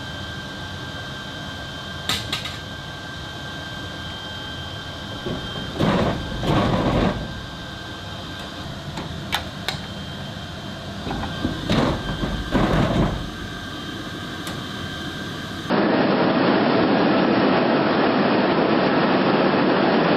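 Steady jet aircraft noise with a high whine, broken by several metallic clanks and thuds. About three-quarters of the way through it changes abruptly to a louder, duller steady rush.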